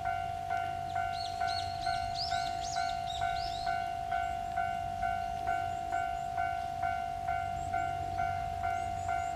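Railway level-crossing warning bell ringing in an even, repeating ding about twice a second. Birds chirp briefly between about one and four seconds in.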